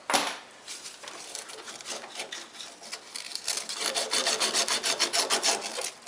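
Copper refrigerant tubing (the process stub) being sanded by hand, quick back-and-forth scraping strokes that grow faster and louder about halfway through: cleaning oxide off the copper before a piercing valve is clamped on and a service port brazed in.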